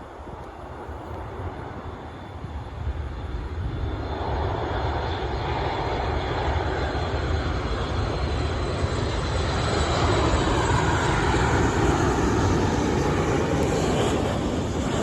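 Boeing 737 MAX 8 jet airliner's CFM LEAP-1B turbofan engines during its arrival: a steady jet rush with a faint high whine, growing louder from about four seconds in and loudest in the second half.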